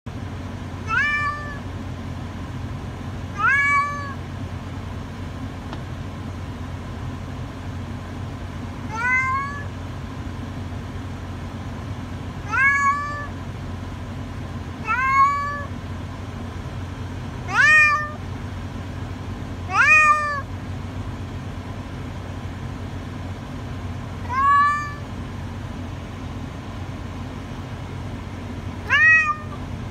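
An adult domestic cat howling from inside a pet carrier: nine separate drawn-out meows, each rising in pitch, two to five seconds apart. These are distress calls from a cat upset at being caged and taken to the vet.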